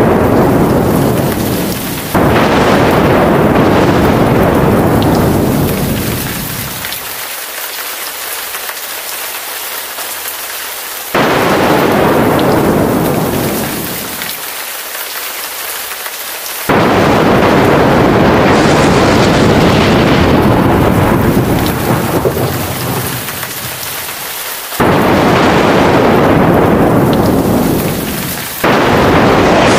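Thunderstorm: steady heavy rain with loud thunder peals breaking again and again. A new peal starts suddenly about two, eleven, seventeen, twenty-five and twenty-nine seconds in, each one rumbling down over several seconds.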